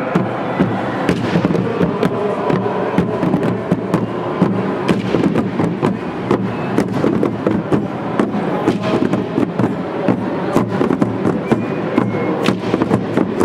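Firecrackers going off in a fast, irregular string of sharp bangs, several a second.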